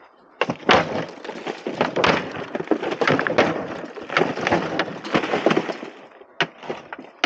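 Footsteps crunching over loose stones and gravel: a dense, irregular run of cracks and crunches that eases off near the end.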